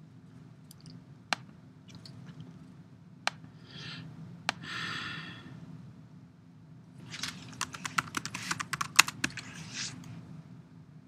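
Computer keyboard being typed on, a quick run of keystrokes over a few seconds near the end. Before it come a few separate clicks and two short rustling bursts, over a low steady hum.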